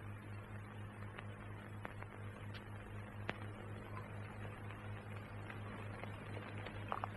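Steady low hum with a few faint, scattered clicks, and a couple of short blips near the end.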